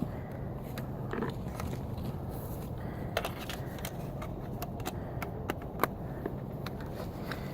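Handling noise from a phone strapped to the body with a rubber band: scattered light clicks and scrapes over a steady low rumble.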